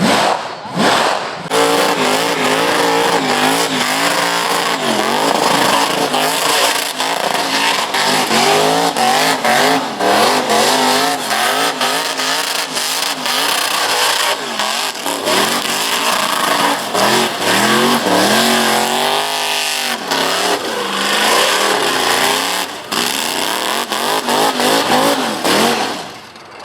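Car doing a burnout: the engine revving hard, its pitch wavering up and down, over a steady noise of tyres spinning against the tarmac. It dies away near the end.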